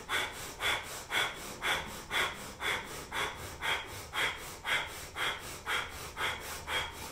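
Breath of fire: rapid, rhythmic breathing in and out through the nose, with a sharp puff at about two breaths a second, pumped from the navel with the belly held engaged in stretch pose.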